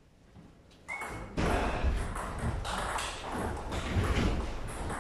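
Table tennis rally starting about a second in: the plastic ball clicking in quick succession off bats and table, with players' feet thudding on the wooden floor.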